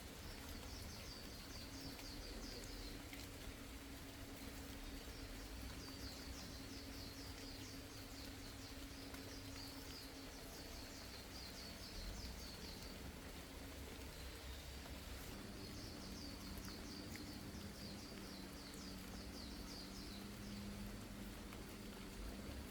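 Faint outdoor ambience: rapid high chirping comes in bouts of a few seconds with short pauses, over a steady low hum.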